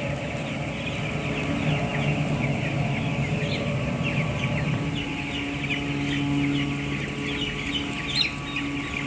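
Many chicks peeping at once, a continuous jumble of short high cheeps, over a low steady hum.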